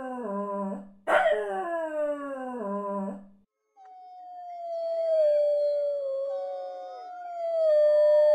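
A dog howling, a descending howl heard twice in a row, exactly alike each time. After a short pause a long, steadier, higher howl begins, with other howls joining and overlapping it.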